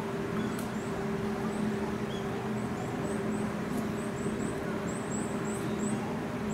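A steady mechanical hum with two even tones, unchanging throughout. Faint, short high chirps repeat over it, most often in the second half.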